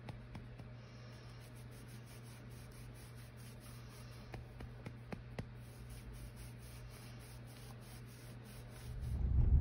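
Faint rustling and soft taps of a hand rubbing over a sleeping child's skin and bedding, over a steady low hum. Near the end a louder car-interior rumble fades in.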